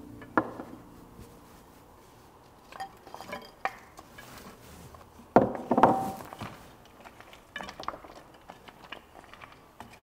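Wooden spoon stirring a thick, creamy pasta and vegetable mix in a cast-iron pan, with scattered clunks and scrapes of the spoon against the iron, the loudest around five and a half to six seconds in.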